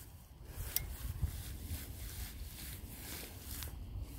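Minelab AT Max metal detector with a 15-inch Cors coil giving a faint, short high squeak about a second in as the coil passes over a deep target, against low rumble. The high tone comes from a deep nail about ten inches down, a false signal.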